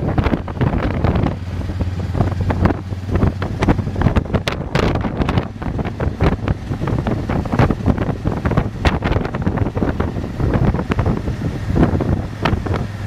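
Wind buffeting the microphone of a moving motorcycle in irregular gusts, over the low, steady hum of the motorcycle's engine.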